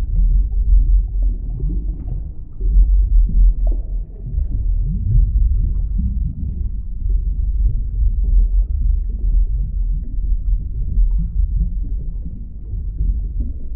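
Deep, muffled underwater rumble that swells and eases without a break, with small wavering sounds drifting through it.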